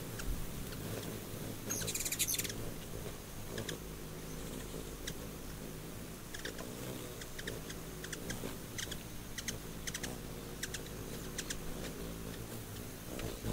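Ruby-throated hummingbirds: a steady low hum of wingbeats, with short high chip calls scattered through it and a brief rapid chatter about two seconds in.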